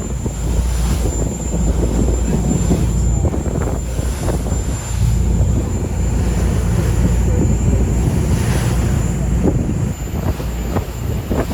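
A boat's motor running steadily under way, with wind buffeting the microphone.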